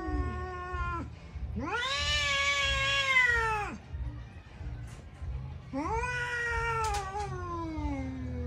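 Domestic cats in a territorial standoff, yowling long, drawn-out caterwauls: one cry ends about a second in, a louder one rises and then falls between about two and four seconds, and a third starts near six seconds and slides slowly down in pitch. These are warning yowls between a resident cat and a stranger cat.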